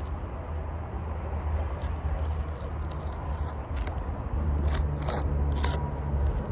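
Steady low rumble with a few short scrapes and taps in the last couple of seconds, from hands and tools working on asphalt roof shingles.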